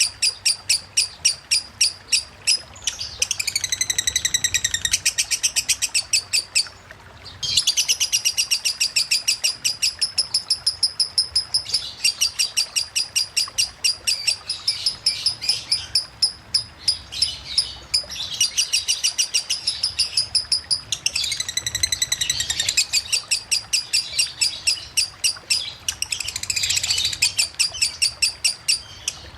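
Lovebird singing in the rapid "konslet" style: long runs of fast, high, ticking chirps, with a brief pause about seven seconds in and changes of pitch pattern between runs. A faint running-water sound lies underneath.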